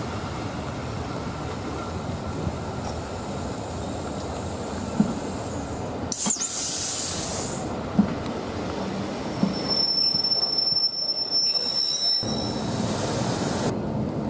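Railway passenger coaches rolling past at speed, their wheels clacking on the rails every second or two over a steady rumble. A brief hiss comes about six seconds in, then a high, thin squeal from the wheels for about two seconds near the end.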